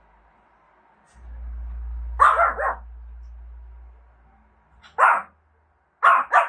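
Shih tzu barking in short sharp barks: a quick pair about two seconds in, a single bark around five seconds, and another quick pair near the end. A low rumble runs under the first barks.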